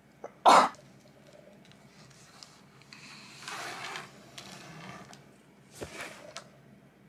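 One loud, sudden burst of breath from a person about half a second in, set off by a tickle in the nose or throat. Softer rustling and a few light knocks follow as a cardboard-backed package is handled.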